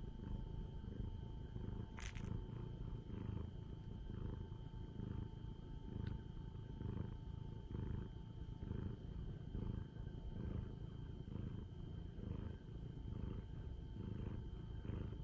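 A domestic tabby cat purring close to the microphone while being petted: a steady low rumble that swells and eases with each breath. There is a brief sharp click about two seconds in.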